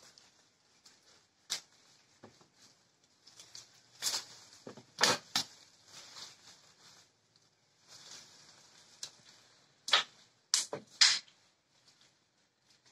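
Orange-tree leaves and branches rustling, with scattered sharp snaps and knocks as oranges are picked by hand. The loudest knocks come in clusters about four to five seconds in and again around ten to eleven seconds.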